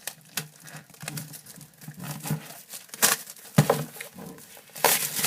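Sheets of paper rustling and crinkling as they are handled, with a few louder rustles in the second half.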